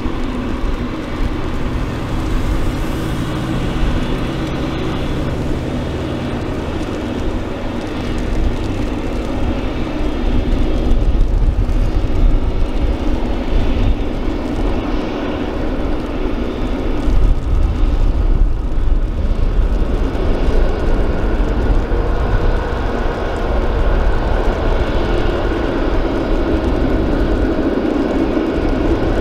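Boeing 777-F's GE90 turbofan engines running at idle thrust while the freighter taxis: a steady jet hum over a low rumble, growing a little louder and brighter in the last third as the aircraft rolls close by.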